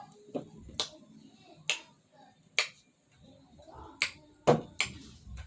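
Someone eating, with about six sharp, short smacking clicks spaced irregularly and faint chewing noise between them.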